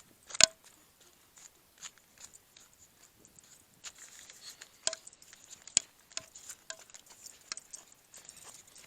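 Footsteps on a paved road with scattered sharp clicks and taps, about one or two a second, the loudest about half a second in.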